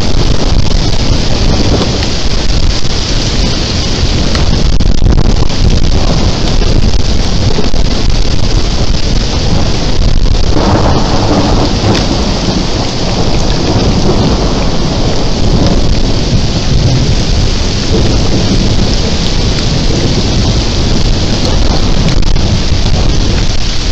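Heavy rain pouring during a thunderstorm, with thunder rumbling steadily underneath; the rumble swells about ten seconds in.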